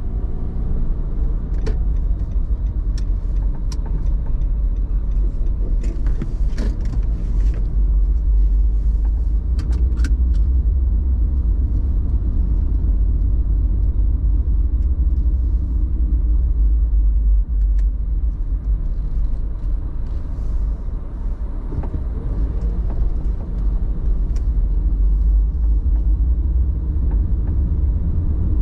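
Car driving on the road: a steady, loud low rumble of engine and tyres, with a few scattered light clicks and ticks.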